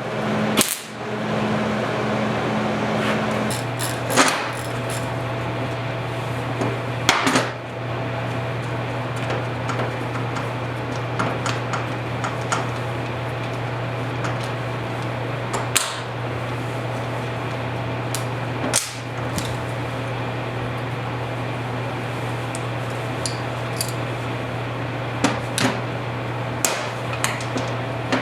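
A workshop machine's electric motor running with a steady hum and hiss, while metal parts knock and click sharply now and then. A second, higher hum drops out a few seconds in, and everything stops just after the end.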